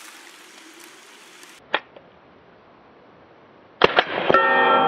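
Suppressed 9mm shots from a Colt AR-15 9mm carbine with a YHM Sidewinder suppressor: a lone sharp crack about two seconds in, then a quick string of cracks near the end. The last crack sets off long bell-like ringing from a struck steel target, which keeps sounding and slowly fades.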